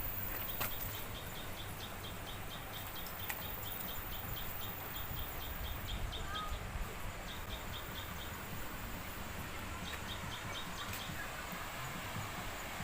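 A high chirping call repeated rapidly, about four times a second, in runs of a few seconds that stop and start several times. Under it is a low rumble of handling noise with a few sharp clicks.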